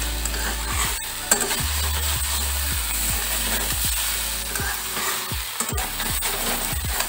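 Flat spatula scraping and turning long beans, potatoes and prawns around a metal kadai while the food sizzles as it fries. The scraping strokes repeat about every half second, with one sharper knock about a second in.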